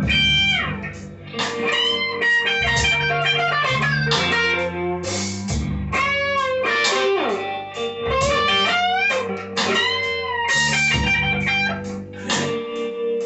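Grote Les Paul-style electric guitar on its factory strings, played lead: single-note runs with many bent notes that slide up and back down in pitch.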